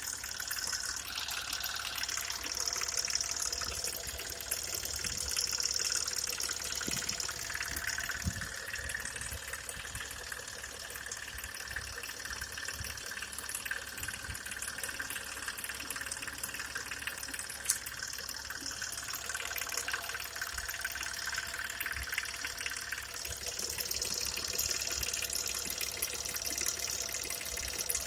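BMW N55B30A turbocharged inline-six engine running steadily, heard close up, with the knocking noise the owner traces to one part of the engine.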